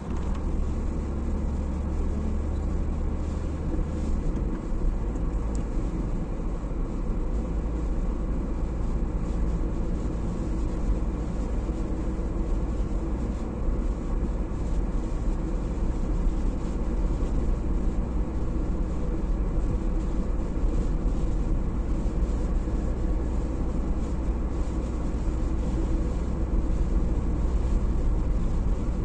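Car driving on a snowy road, heard from inside the cabin: a steady drone of engine, tyres and wind. A low hum under it drops slightly in pitch about four seconds in.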